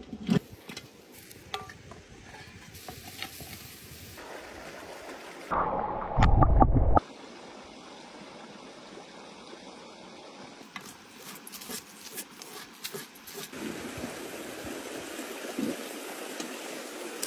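Heavy cast-iron camp oven lid handled with leather gloves, giving a few sharp metal clanks and knocks over a steady background hiss. About six seconds in, a loud low rumble lasts a second or so.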